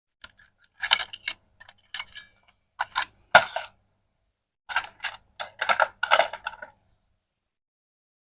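Light clicks and clatters of small hard objects being handled. They come in several quick clusters with silent gaps between them.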